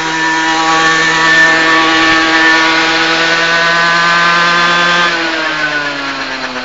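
Aprilia RS50's 50cc water-cooled two-stroke engine held flat out at a steady high pitch on a roller dyno top-speed test, the bench reading 63 km/h. About five seconds in, the revs fall away as it winds down.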